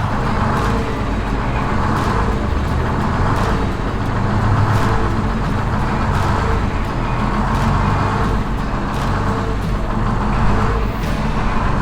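Vintage GM 40-foot transit bus's engine running steadily as the bus drives, with road noise and light rattles.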